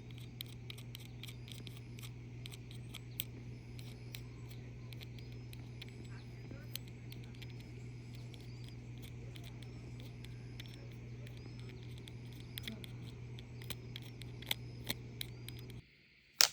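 Many irregular sharp clicks over a steady low hum, with short repeated chirping tones high up; the hum cuts off near the end, followed by one loud click.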